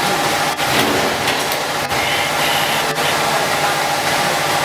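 Vacuum brick packaging machine line running: a steady mechanical hum and whir of motors and moving parts, with a few brief dips in level.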